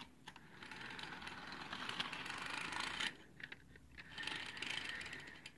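Model train cars pushed by hand along sectional track, their wheels rattling and clicking over the rails and joints. The noise comes in two runs, a longer one of about three seconds and a shorter one near the end after a brief pause.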